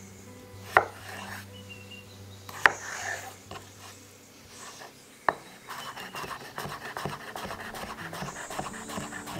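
Chef's knife cutting a cucumber on a bamboo cutting board: three single sharp knocks of the blade on the board as it splits the cucumber lengthwise, then, a little past halfway, fast even chopping as it dices.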